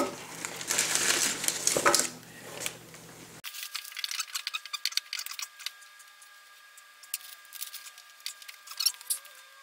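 Motorcycle swing arm being slid into the frame: scraping and rubbing of metal parts for about two seconds, then light metallic clicks and clinks as the parts are handled.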